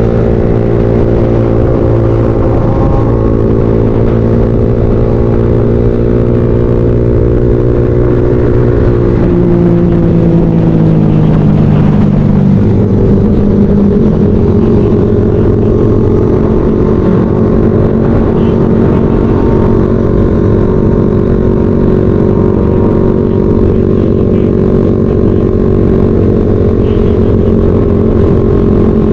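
Motorcycle engine running steadily while riding at speed, heard from the rider's own bike. The engine note falls about nine to twelve seconds in, as the rider eases off, then holds steady again.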